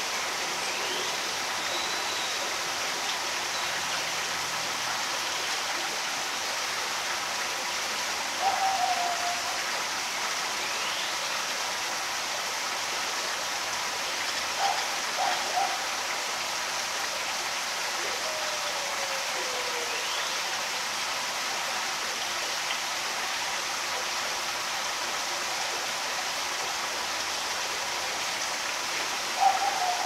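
Steady outdoor rushing hiss with a few short bird calls: one brief call about eight seconds in, three quick notes around fifteen seconds, a falling note a few seconds later, and more notes at the very end.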